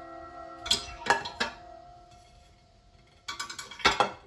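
Ceramic plates clinking against each other and a metal wire dish rack as a plate is set into it: three sharp clinks about a second in, then a quick clatter near the end closing on the loudest clink.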